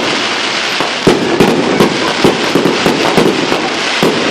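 Fireworks going off in a loud, rapid barrage: dense crackling with many sharp bangs in quick succession.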